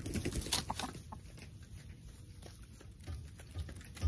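Chickens pecking at dried black soldier fly larvae, an irregular run of quick taps.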